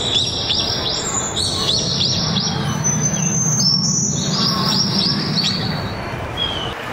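Birdsong: overlapping high chirps and trilled whistles from several calls in quick succession, over a steady low hum.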